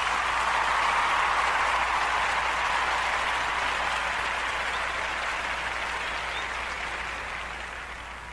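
Crowd applause that peaks about a second in and then slowly fades away.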